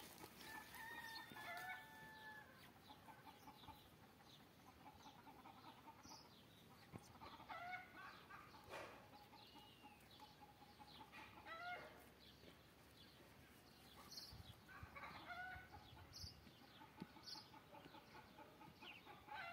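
Faint chicken clucking: a few short calls in small groups every few seconds, over a quiet outdoor hiss.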